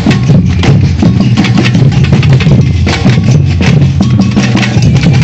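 Batucada samba percussion group playing a dense, steady groove: deep bass drums under fast, sharp snare and higher percussion strokes.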